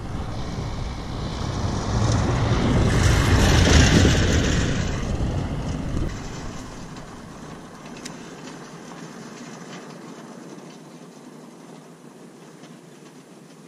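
A vehicle passing on the dirt road: a rumbling rush that swells to its loudest about four seconds in and fades away by about six seconds, leaving a faint steady rush.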